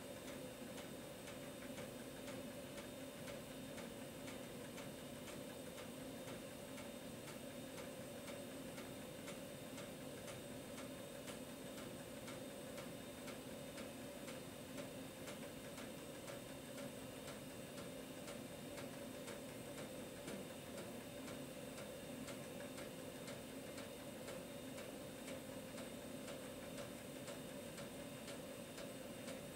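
A 5.25-inch 1.2 MB floppy drive formatting a diskette under DOS. The head stepper ticks regularly as it moves track by track, over a steady hum.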